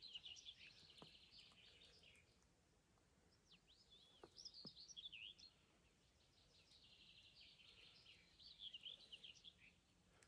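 Faint songbird singing in three phrases of quick repeated and swooping high notes: one at the start, one around four seconds in, and a longer one from about six and a half to nine and a half seconds. A couple of faint soft ticks are heard in between.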